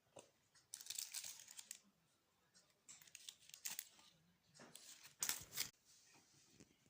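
Crinkling, rustling handling noise in three short bursts, the last the loudest.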